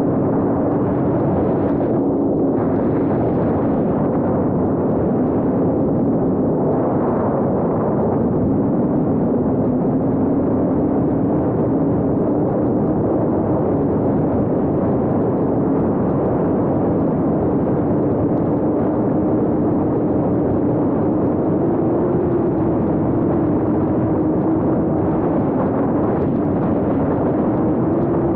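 7-inch FPV quadcopter's motors and propellers buzzing in flight, heard close up from the camera mounted on the drone. A steady hum sits under the noise and its pitch wavers gently up and down.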